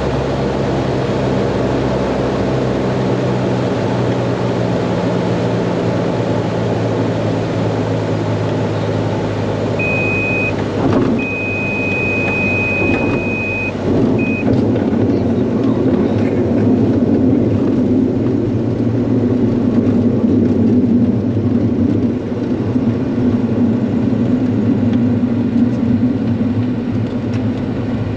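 Inside the cabin of a small single-engine propeller airplane landing: the engine runs steadily at low power while the stall warning horn sounds in the flare, a short beep, a long tone of about two and a half seconds, then another short beep. After the tone a louder rumble follows as the wheels roll along the paved runway.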